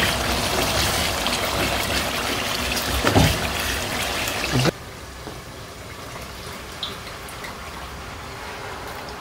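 Tomato and pepper stew sizzling in a pot as it is stirred with a wooden spoon, with one knock a little past three seconds. The sizzle cuts off suddenly about halfway, leaving a quieter steady hiss as rice in water is poured from a plastic tub into the pot.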